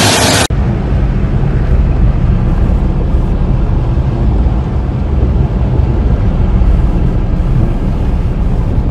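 About half a second of loud rain and wind noise from a night downpour, then a cut to the steady deep rumble of a car driving along a flooded road, heard from inside the cabin.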